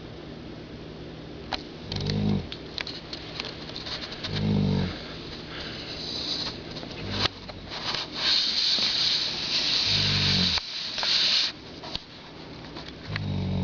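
A sleeping pet snoring: four short, low snores come about every two and a half to three seconds. Between them are hissy breaths and small clicks, and a loud, drawn-out hissing breath falls in the middle.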